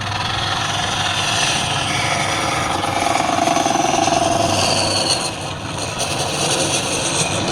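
A wood lathe running, with a turning tool cutting into the spinning workpiece. The cutting noise starts abruptly at the beginning and eases a little about five seconds in.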